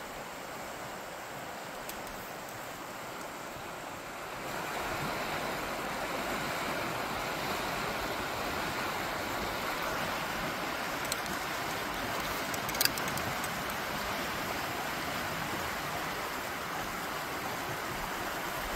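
Fast, shallow riffles of a mountain river rushing steadily, growing louder about four seconds in. A single sharp click, the loudest moment, comes about two-thirds of the way through.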